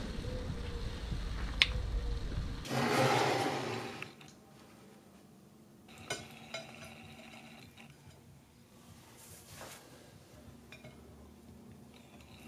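A steady low background rumble with a single click, then a loud hiss lasting about a second. After that, in a quiet room, a wooden serving spoon lightly clinks and scrapes against a ceramic plate while rice is served.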